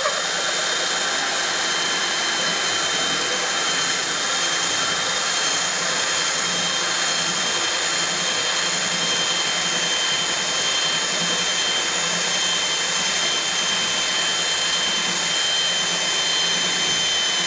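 A slow-speed mixer drill driving a hole saw into a wooden door to bore the lockset hole. The motor runs with a steady, loud whine and fixed high tones throughout, without letting up.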